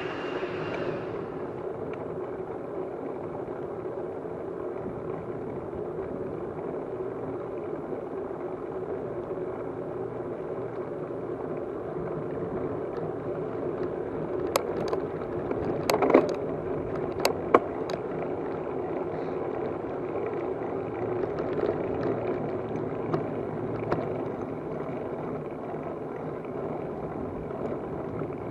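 Steady rumble of a moving vehicle, with a few sharp clicks and knocks about halfway through.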